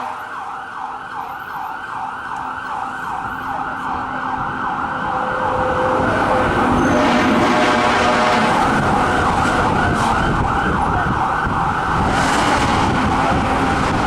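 Fire truck's electronic siren in a fast yelp, rising and falling about two to three times a second, with engine and road noise growing louder from about six seconds in as the truck arrives.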